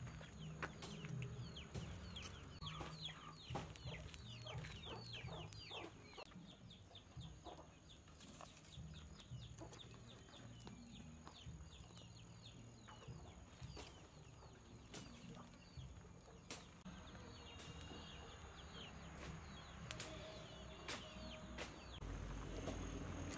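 Chickens in the background, with a quick run of short, high, falling peeps over the first several seconds, then scattered calls. Occasional clicks and crackles from a wood fire come through as well.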